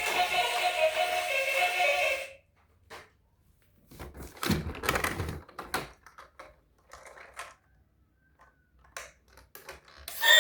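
An electronic sound from a toy vehicle plays for about two seconds and cuts off. Then come scattered clicks, knocks and a short rattle of plastic toys being handled. Another electronic alarm-like tone starts right at the end.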